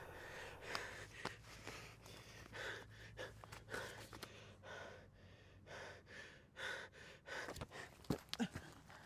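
A man's faint, uneven breathing: a string of short breaths and sighs. A few sharp clicks come near the end.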